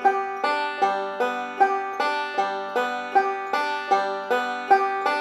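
Five-string bluegrass banjo picking a square roll slowly and evenly, about two and a half notes a second: thumb on the third string, index on the second, thumb on the fifth, middle on the first, each note ringing into the next.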